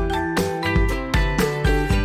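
Background music: an upbeat instrumental with a steady beat and bright plucked or mallet-like notes.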